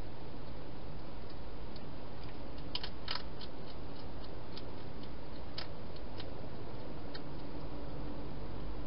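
Hedgehog eating from a bowl inside a plastic feeding box: scattered small crunching clicks, with a cluster about three seconds in, over a steady low hiss.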